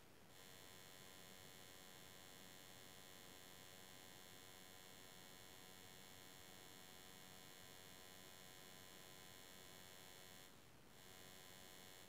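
Near silence: only a faint, steady electrical hum, the recording's own noise, which changes briefly near the end.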